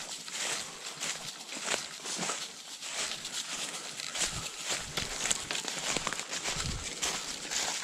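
Footsteps of a person and a dog crunching and rustling through dry fallen leaves and twigs, a steady run of short crunches while walking briskly.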